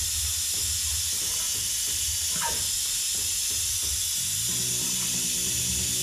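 Vacuum pump running with a steady hiss as it sucks old fork oil and air out of a motorcycle's front fork tube while the forks are pumped. Background music comes in about four and a half seconds in.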